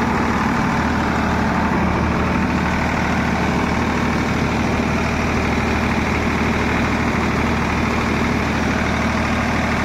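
Farmtrac 50 tractor's three-cylinder diesel engine running steadily at about 1500 rpm with no load, held at a fast idle for a fuel-consumption test.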